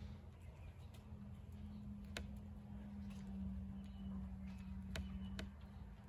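A steady low hum with a few faint, sharp clicks and a couple of brief faint high chirps.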